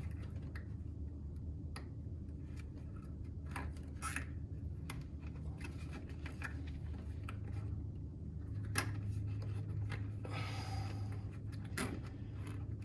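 Plastic zip ties being threaded and pulled around cables: scattered small clicks, scrapes and rustles over a steady low hum.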